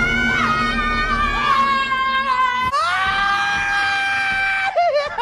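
Meme sound clips of long, high-pitched held screams. The first is over music and cuts off suddenly about two and a half seconds in. A second scream rises and holds steady, then breaks into short wavering cries near the end.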